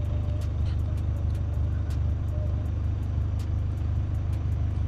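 A steady low hum with an even level throughout, like an idling vehicle engine or running machinery.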